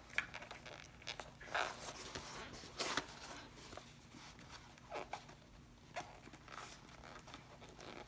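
Vinyl connector strap being dragged through a slit in a quilted vinyl bag panel, making several short, sliding scrapes. The loudest comes about three seconds in.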